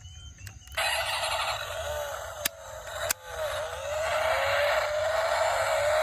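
Small electric motor of a toy car running, a whine over a hiss that wavers and then rises steadily in pitch, with two sharp clicks near the middle.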